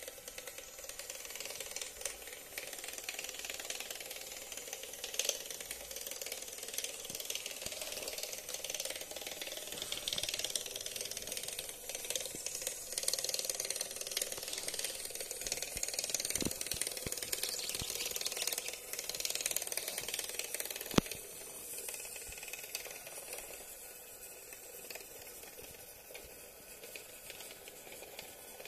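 Small Pololu 50:1 metal gearmotor driving a LEGO-compatible monorail engine along its toothed rack track: a continuous high whirring clatter of gears and wheels. It is louder through the first twenty seconds while the train takes the curves, where something in the wheels makes too much noise at turns, has a single sharp click about 21 seconds in, then carries on quieter.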